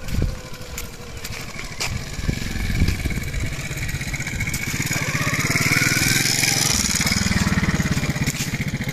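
A small vehicle engine running, getting louder over the first half with its pitch rising, then holding steady.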